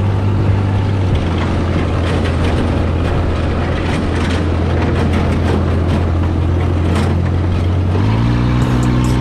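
Vehicle engine running steadily under rattles and knocks. About eight seconds in, its note steps up to a higher steady pitch as it revs.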